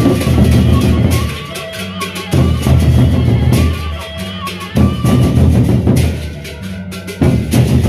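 Sasak gendang beleq ensemble playing: large double-headed barrel drums beaten with sticks in loud, dense phrases. About three times the drumming drops into a short lull in which low steady tones ring on before the drums come back in.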